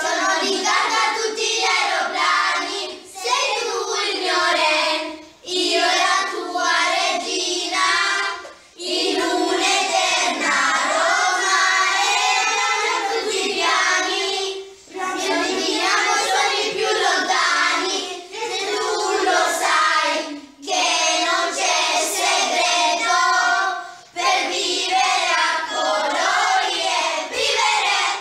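A group of children singing a song together in sung phrases broken by short pauses.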